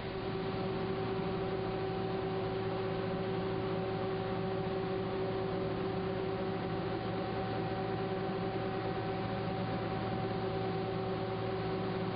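Steady foundry melt-shop noise: a constant hum with an even rushing hiss beneath it, from the electric melting furnace as it pours molten iron into a ladle.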